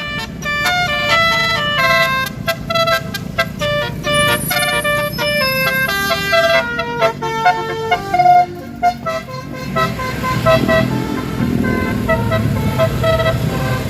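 Bus telolet horn playing a quick melody of short, high, changing notes, with the bus engine running underneath and growing louder in the last few seconds.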